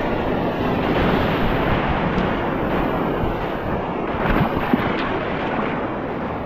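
Whitewater rapids rushing steadily, with a brief sharp click about four and a half seconds in.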